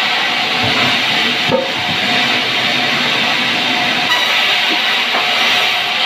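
Sawmill band saw running and cutting through a log, a steady loud hiss with a short knock about one and a half seconds in.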